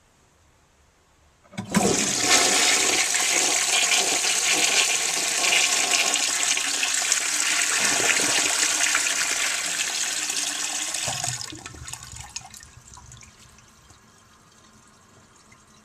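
1931 Standard Ejecto toilet bowl flushing from its 1930s tank: a sudden loud rush of water about a second and a half in, running strongly for about ten seconds, then dying down to a faint steady run. It is a single flush, without the double flush of the later Modernist bowl.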